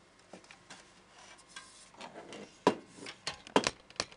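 Handling noise from an aluminium laptop stand and a laptop being moved about by hand: a short rubbing, then a run of sharp clicks and knocks, the loudest about two and a half and three and a half seconds in.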